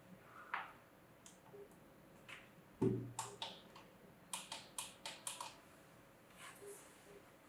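Plastic buttons on a sunrise alarm clock being pressed to set the time: a dozen or so short clicks, several in quick succession between about four and five and a half seconds in, with a heavier knock about three seconds in.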